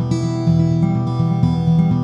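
Background music led by acoustic guitar, with steady plucked or strummed chords.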